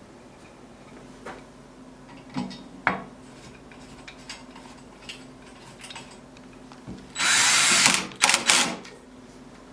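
A handheld power tool run in short bursts: one of about a second, then two quick blips. A few light knocks of wood come before it.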